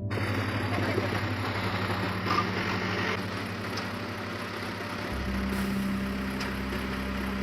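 A heavy vehicle's engine running steadily, with a deeper low hum coming in about five seconds in.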